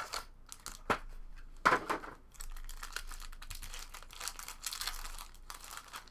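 A trading-card pack wrapper being torn open and crinkled by hand. There is a sharp rip just under two seconds in, then steady crinkling of the wrapper.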